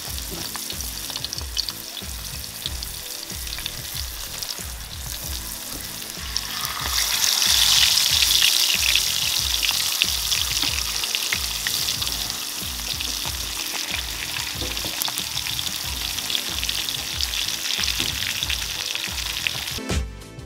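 Marinated fish pieces sizzling and crackling as they shallow-fry in hot oil on a flat metal pan. The sizzle grows louder about seven seconds in, as a second large piece goes into the oil.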